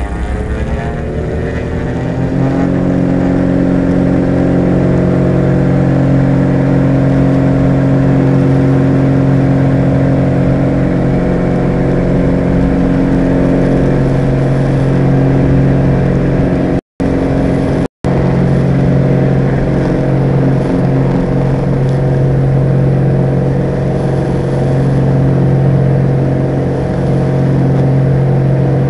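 Diamond DA42 Twin Star's two engines and propellers coming up to takeoff power in the first couple of seconds, then holding a steady drone through the takeoff run and climb. The sound cuts out for an instant twice, about a second apart, roughly halfway through.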